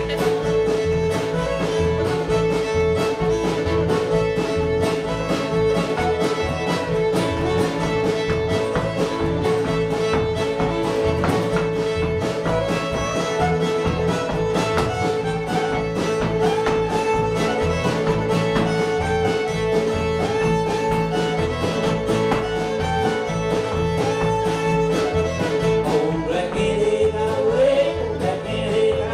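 A live string band playing fast bluegrass-style music: fiddle, guitar and upright bass over a steady beat, with the fiddle holding long notes.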